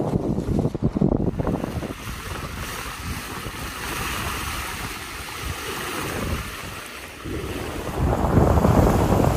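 Wind buffeting the microphone over the wash of waves along a sailboat's hull under way. There is a hissing rush of water in the middle, and heavier wind rumble at the start and again from about seven seconds in.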